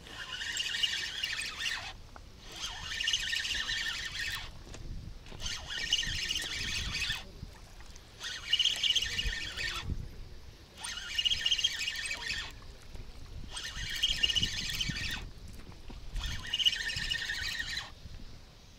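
Spinning reel on a feeder rod being cranked in repeated bursts of a high whirr, about seven of them, each a second and a half to two seconds long with short pauses between. The reel is winding in a hooked fish under load.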